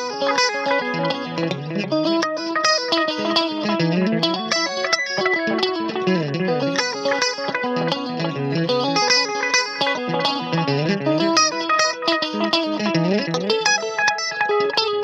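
Electric guitar played through a Joyo Time Magic delay and a Joyo Future Chorus pedal into an Orange Micro Terror valve amp head and a single 12-inch Vintage 30 speaker cab: a continuous run of notes with the delay and chorus effects on.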